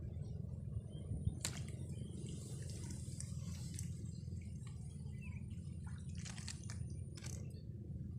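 A hooked fish struck from a float rig and lifted out of the water: a few short splashes and clicks from the fish and tackle over a steady low rumble.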